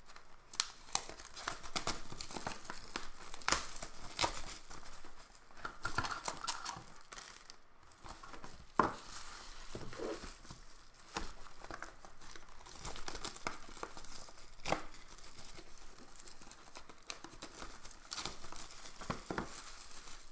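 Clear plastic wrapping crinkling and tearing in the hands as trading-card boxes are unwrapped, in irregular sharp crackles and rustles.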